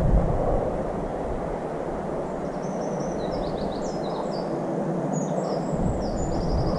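A songbird singing a long, fast run of short, high chirps, starting about two seconds in, over a steady rushing background noise.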